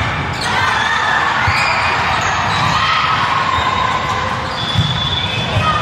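Indoor gym court sounds during a game: sneakers squeaking on the floor and low thuds of the ball and feet, with voices in the background. A sharp hit stands out about five seconds in.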